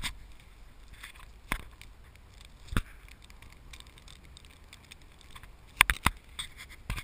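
Car pushing through deep snow, heard muffled: a low rumble with a handful of sharp knocks of snow striking the body and camera, the loudest two close together near the end.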